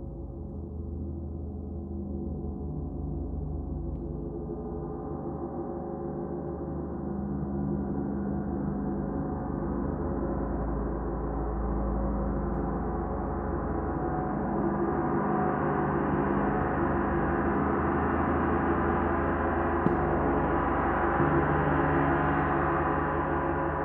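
A 32-inch Oetken Komet gong played with a felt-headed mallet: a dense, shimmering wash of many overlapping tones that swells steadily louder and brighter.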